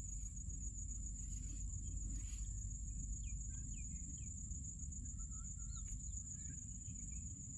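Faint background: a steady high-pitched cricket trill over a low hum, with a few faint short bird chirps near the middle.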